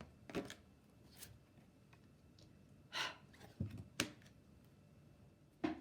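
A few soft clicks and knocks with a brief rustle, from flash cards being handled and set down in a small room.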